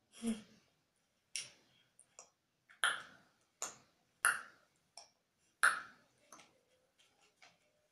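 Finger snaps, about seven sharp snaps in a loose rhythm roughly every 0.7 seconds, followed by a few faint ticks near the end.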